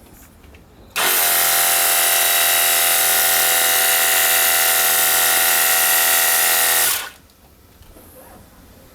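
Cordless battery-powered handheld pressure washer running: its electric motor and pump give a steady whine under a strong hiss. It starts suddenly, runs evenly for about six seconds, then stops.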